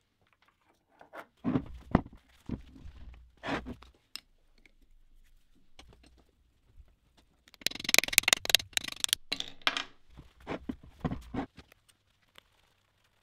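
Metal tools and parts being handled on an old cast-iron milling-machine spindle housing: scattered knocks and clicks, then a dense scraping, crunching rattle for about two seconds starting about eight seconds in, and a few more knocks after it.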